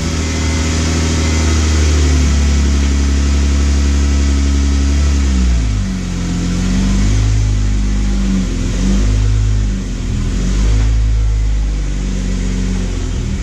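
Jeep Wrangler JK's V6 engine running just after starting. It holds a steady idle for about five seconds, then the revs rise and fall several times.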